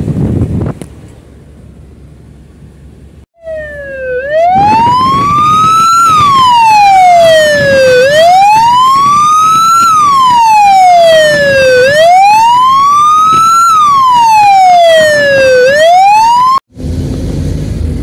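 Vehicle siren wailing, its pitch rising and falling in slow sweeps about every four seconds; it starts a few seconds in and cuts off abruptly near the end. Car and wind noise comes before it briefly.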